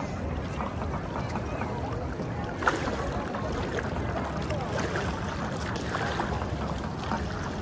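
Steady river-bank background of moving water with faint voices of other bathers, and one sharp knock about two and a half seconds in.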